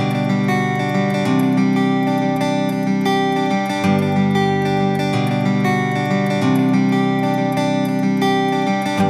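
Background music led by plucked acoustic guitar, with steady held notes changing every second or so.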